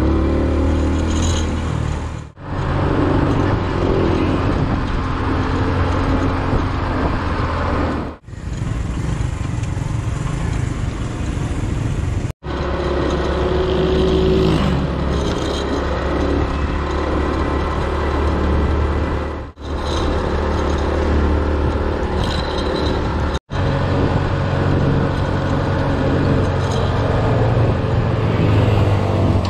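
Motorcycle running steadily while being ridden, with its engine rumble mixed with wind and road noise, in several segments broken by brief sudden gaps.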